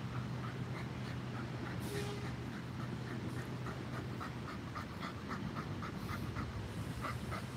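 Boston Terrier panting quickly and steadily, about three to four breaths a second, over a steady low hum.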